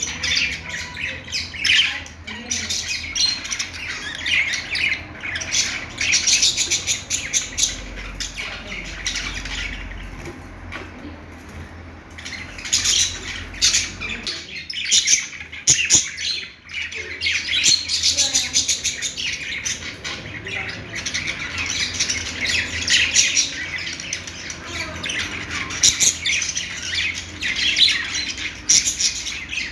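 Budgerigars chattering: a continuous stream of rapid chirps, warbles and squawks, thinning briefly about a third of the way in.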